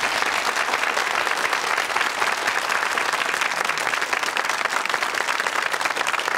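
Studio audience applauding: many hands clapping at once, steady throughout.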